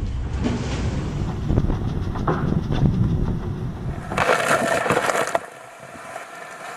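Wind buffeting the microphone and the sea rushing past a Volvo Ocean 65 racing yacht driving hard through heavy seas, with occasional knocks. About four seconds in, a wave breaks over the deck and spray hits with a loud rush, which stops suddenly about a second later.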